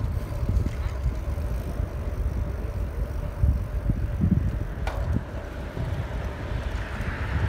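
Wind buffeting a phone microphone on a moving bicycle, in irregular low rumbles, over a faint steady hum. A single sharp click about five seconds in.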